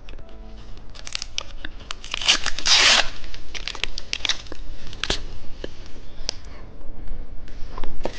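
A snack wrapper being torn open and crinkled by hand: many small crackles and clicks, with one loud tear about two seconds in.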